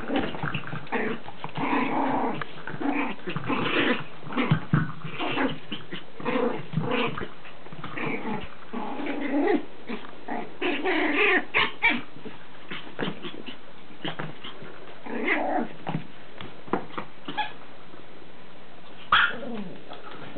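Chihuahua puppy play-growling in a string of short growls while tussling with a toy, with a few sharp knocks in between.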